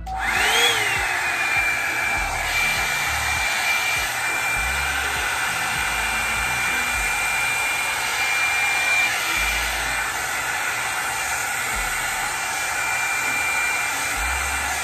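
Hot Tools One Step Blowout hot air brush switched on: its motor whines up to speed in the first second, then runs steadily with a rush of air and a thin high whine as it is drawn through hair.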